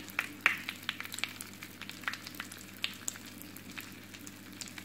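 Crackle bath colour salt rocks crackling in a container of water: many small, sharp pops at an irregular rate.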